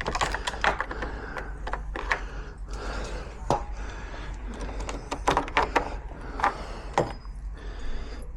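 Irregular clicks and knocks of metal lock parts being handled and fitted together by hand, with a few sharper knocks about three and a half, five and seven seconds in.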